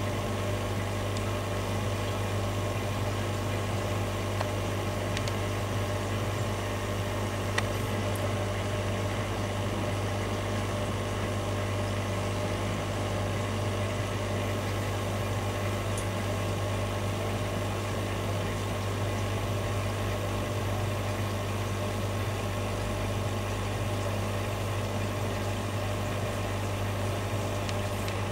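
Steady low electrical hum of aquarium equipment, with a sharp click about seven or eight seconds in.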